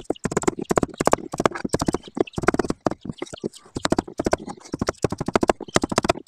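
Rubber mallet hammering a wooden block set against a fuel pump lock ring, driving the ring round to tighten it on the fuel tank. Rapid hollow knocks, several a second, in bursts with short pauses.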